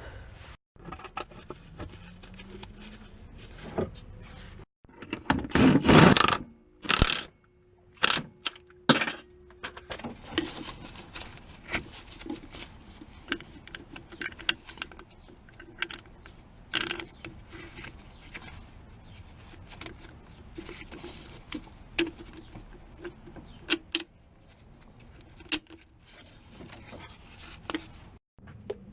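Irregular clinks, clicks and knocks of metal tools and car parts being handled during clutch replacement work, broken by several abrupt cuts. The loudest sound is a harsher noisy burst about six seconds in.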